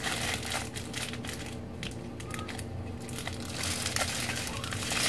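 Small plastic bags crinkling and crackling as they are handled and filled with loose diamond-painting drills, with a brief quieter moment about halfway through.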